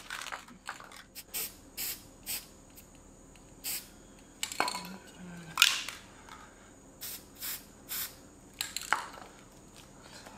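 Aerosol spray-paint can hissing in a string of short bursts, putting a coat of paint on a small steel-pipe cannon.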